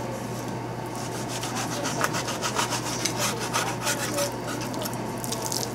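Kitchen knife sawing back and forth through a raw sea bream fillet on a plastic cutting board, cutting out the middle line of bones: a run of short scraping strokes, thickest from about two to four seconds in, over a steady low hum.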